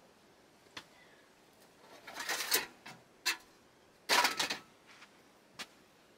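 Scattered light knocks and clicks, with two short rustling scrapes, one about two seconds in and a louder one about four seconds in: someone stepping about and handling things against the wooden plank walls of a small shed.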